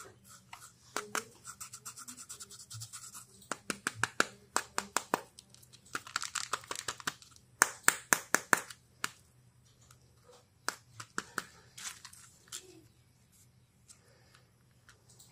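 Fingernails scratching and picking at a glitter-coated Kinder Joy egg: a run of sharp clicks and scratchy rustling, busiest in the first nine seconds and sparser after that.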